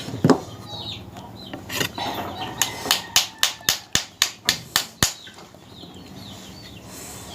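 Stone knocking on raw clam shells to crack them open: a run of sharp strikes, about three or four a second, from about two seconds in until about five seconds in, then stopping.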